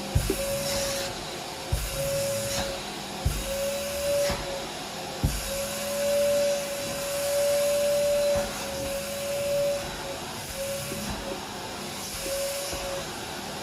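Vacuum cleaner running: a hissing airflow with a motor whine that swells and fades. Several short low knocks come in the first few seconds and once more near the end.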